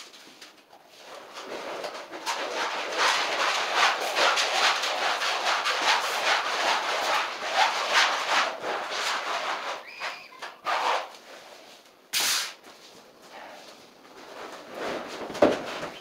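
Rough scraping and rustling with fine crackles for several seconds as vinyl flooring is worked along the floor edge, fading out about ten seconds in. A sharp knock follows about twelve seconds in and another near the end.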